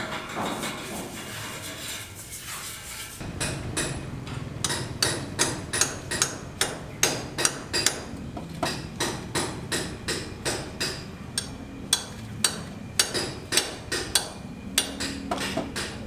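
A trowel scraping over fresh cement plaster for the first few seconds. Then, from about three seconds in, a hammer striking repeatedly on masonry at about two to three blows a second.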